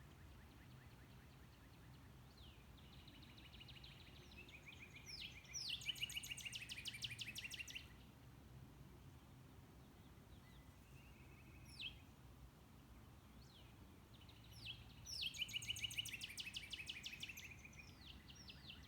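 A songbird singing two long, rapid trilled songs several seconds apart, each opening with a few quicker notes, with a short call between them. A faint low hum sits underneath.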